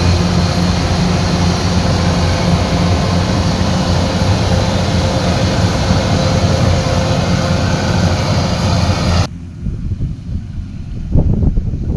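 Diesel engine of a Kubota combine harvester running steadily at high revs with a loud, dense mechanical din. About nine seconds in it cuts off abruptly, leaving a quieter low rumble with a few short knocks.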